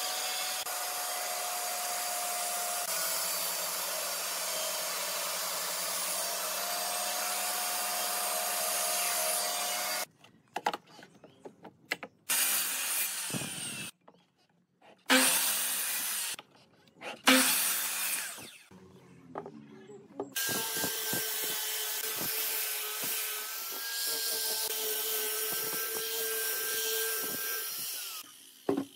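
A band saw runs steadily, cutting through a thick pine block, for about the first ten seconds. Then come several short, loud cuts from a mitre saw, each motor start and cut separated by quiet. The last third is a steady power-tool whine, an angle grinder with a sanding disc working wood.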